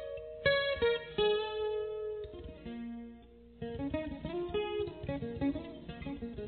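Music: a guitar playing separate plucked notes that ring and fade. After a short lull about three seconds in, it plays a quicker run of lower notes.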